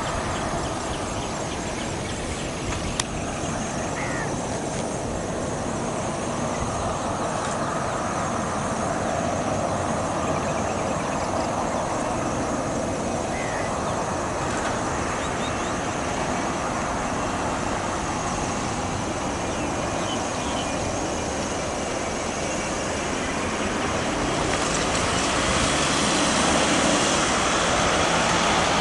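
Jet engine noise from an Airbus A380-861's four Engine Alliance GP7200 turbofans on final approach: a steady rushing sound that grows louder from about 24 seconds in as the airliner comes closer.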